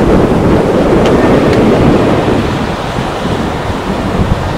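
Twin-engine jet airliner's engines making a loud, steady rush just after touchdown as it rolls out down the runway, easing off over the last couple of seconds.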